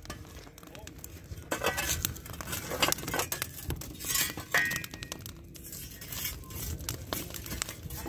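Dishes and glassware clinking and clattering in a quick, irregular run, with a short ringing chime about four and a half seconds in.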